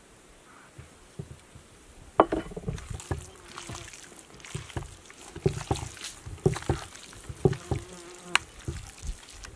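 Wet squelching and slapping of bare hands kneading garlic and spices into raw veal pieces in a glass bowl, in irregular bursts from about two seconds in, with a few short squeaks.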